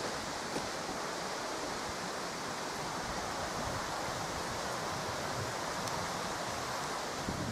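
Steady wind noise, an even rushing hiss without breaks, from wind in the trees and across the microphone.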